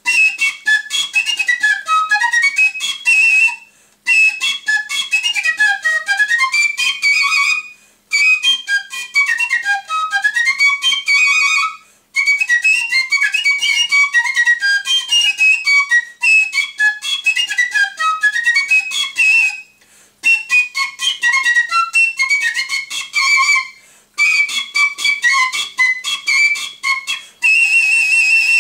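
Solo piccolo playing a quick, high melody in phrases of about four seconds, each broken by a short breath. Near the end it settles on one long high note with vibrato.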